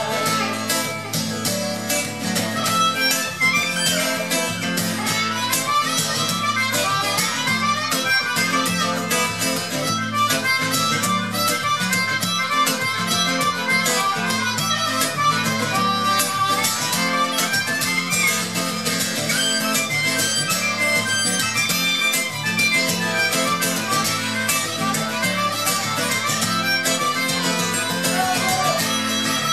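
Harmonica playing a melody into a microphone over steady strumming on an acoustic guitar, in an instrumental break of a song.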